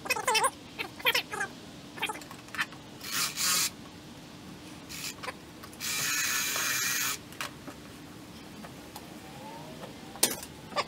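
A cordless electric fillet knife runs in two short bursts, about half a second near the 3-second mark and about a second midway. Several short rising-and-falling cries like a cat meowing come at the start and again near the end.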